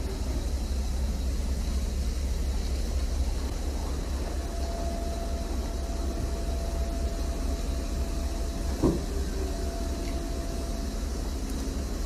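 Steady low rumble of a running heavy vehicle engine, with a thin steady whine joining about four seconds in and a single sharp knock about nine seconds in.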